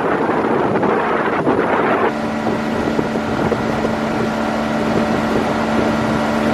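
Small motorboat's engine running at a steady speed, with wind buffeting the microphone. About two seconds in, the sound changes abruptly and a steady engine hum comes through clearly.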